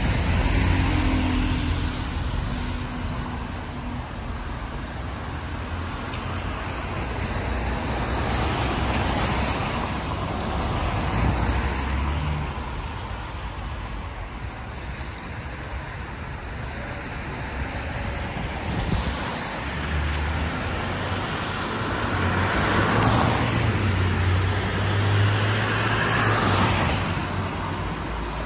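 Road traffic on a wet street: several cars passing one after another, their tyres hissing on the wet tarmac with a low engine rumble, rising and fading, the loudest pass near the end.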